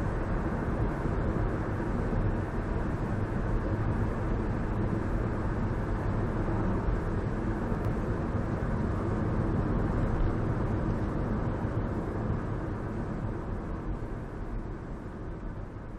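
Steady road and engine noise of a moving car, heard from inside the cabin, fading out over the last few seconds.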